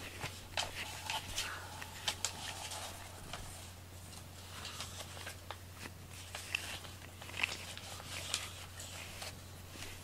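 Soft rustling and scattered light clicks from a long-haired cat moving about close by, over a faint steady low hum.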